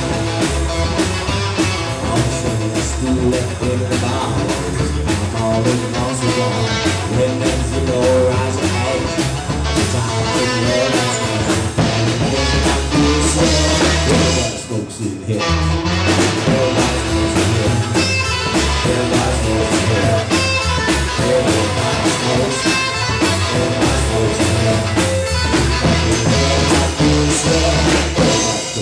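Rockabilly band playing live: upright double bass, hollow-body electric guitar and drum kit. About halfway through the band drops out for about a second, then comes back in.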